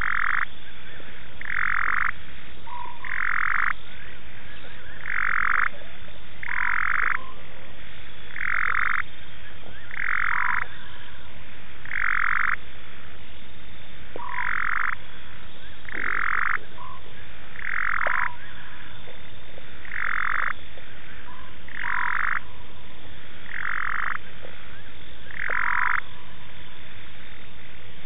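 Frogs calling in a steady chorus: one loud call about every two seconds, several of them followed by a short, lower note.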